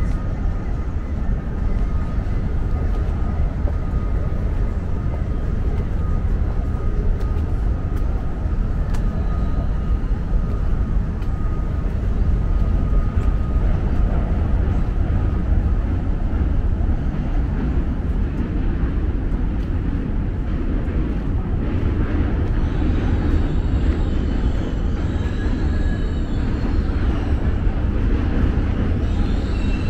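Steady low rumble of the city outdoors. In the last several seconds a subway train crossing the Manhattan Bridge comes in, its wheels squealing in high, thin tones.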